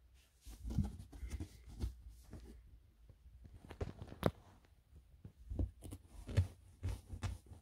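Quiet rustling, soft thumps and small creaks as a person shifts and presses down on a thousand-pocket memory foam mattress, with one sharper click about four seconds in.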